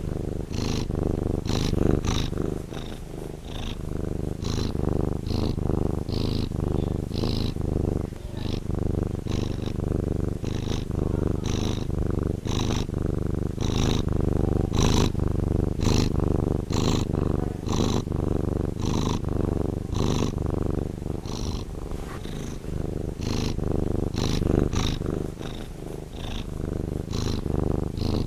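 Domestic cat purring continuously: a low, finely pulsed rumble with a soft airy hiss that comes and goes about once a second.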